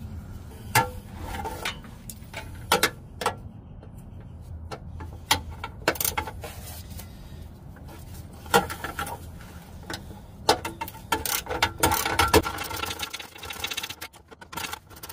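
Hand ratchet wrench clicking as it turns a 10 mm bolt, with scattered tool knocks and quicker runs of clicks past the middle.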